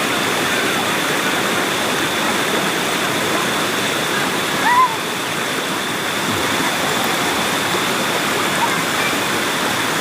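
Steady, unbroken rush of a river waterfall, with a thin steady high tone running under it and one short rising chirp about halfway through.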